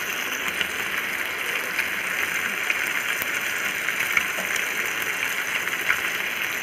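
Pomfret pieces shallow-frying in oil on a tawa, browned and cooked through: a steady sizzle with scattered small pops of spattering oil.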